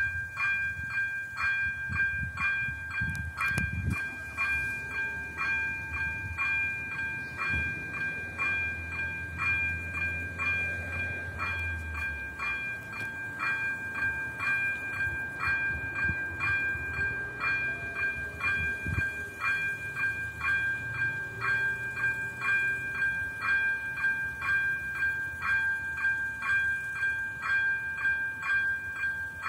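Level-crossing electronic warning bell ringing in quick, even strikes, about two a second, warning that a train is approaching and the crossing is closed. A low rumble runs underneath for the first twelve seconds or so.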